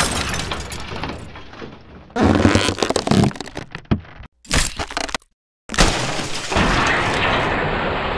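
Sound effects of arrows shattering targets: a glass bottle breaking at the start, with shards falling away over a couple of seconds. A few shorter noisy bursts follow, then a little past halfway a heavy crash as a slab bursts apart, with dense crumbling debris.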